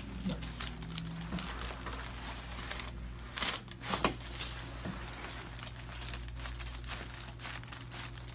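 Crinkling and rustling, like paper or fabric moving as someone shifts on a treatment table, with scattered sharp clicks and two louder ones near the middle, over a steady low hum.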